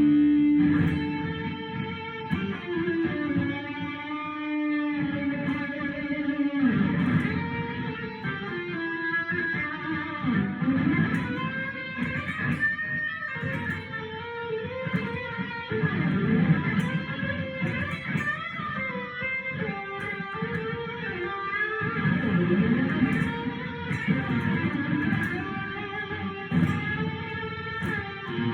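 Electric guitar playing a continuous melodic line.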